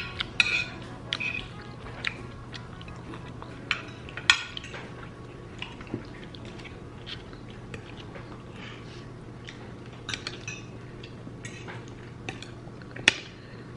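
Spoon and fork clinking and scraping against a plate as someone eats, in scattered sharp clinks with the loudest near the end, and chewing between them.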